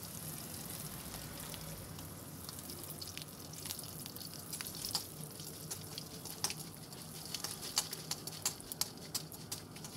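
Dried turkey berries (sundakkai vathal) frying in hot sesame oil in a kadai: a steady sizzle with sharp crackles and pops. The pops become more frequent from about a third of the way in.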